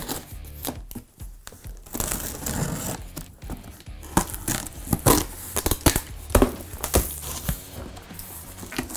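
Cardboard shipping box being cut open and handled: packing tape slit with a blade, with cardboard crinkling and scraping and a run of short sharp knocks in the second half as the flaps are pulled open.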